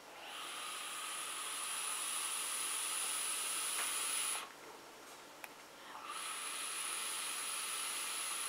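Box-mod e-cigarette with a tank atomizer being drawn on: a steady hiss with a thin high tone from the firing coil and inhaled air, lasting about four seconds, then after a short pause and a click, a second draw of about three seconds.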